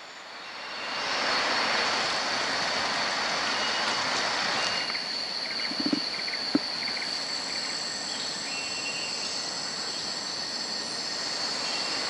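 Rainforest insects droning: a steady high buzz over a broad hiss that swells in about a second in, with a few short chirps and a soft thump near the middle.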